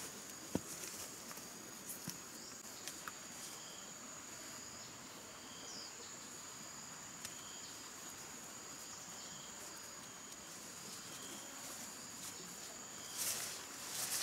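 A steady high-pitched insect drone, with a short chirp repeating about once a second. A few light clicks of handling come near the start, and a louder rustle comes near the end.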